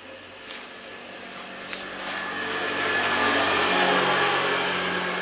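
A passing vehicle's engine, swelling to its loudest about four seconds in and then easing off, with two light knocks near the start.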